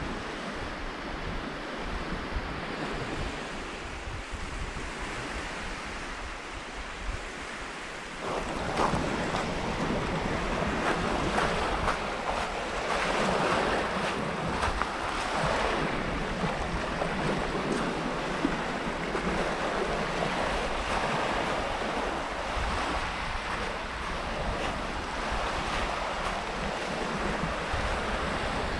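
Small Baltic Sea waves washing onto a sandy beach, with wind buffeting the microphone; the surf grows louder about eight seconds in.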